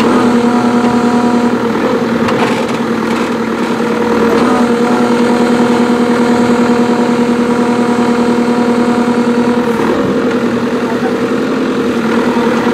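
Diesel engine of a JCB 3CX backhoe loader running steadily under load as its backhoe bucket digs into sand, with small dips and swells in engine note around two to four seconds in and again near ten seconds.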